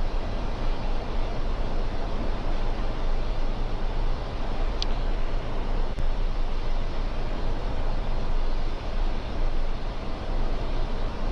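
Steady rushing noise on a Boeing 747-400 flight deck during descent, the airflow and air-conditioning noise of the cockpit. A short high chirp sounds a little before halfway, and a faint click follows about a second later.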